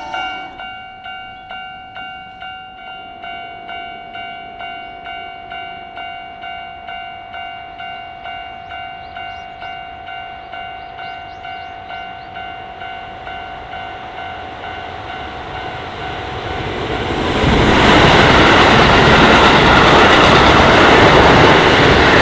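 Japanese level-crossing warning bell ringing in a steady electronic ding-ding, about two strokes a second. About sixteen seconds in, a Keisei Main Line train comes up and passes close by, loud enough to drown out the bell, with wheels clacking over the rail joints.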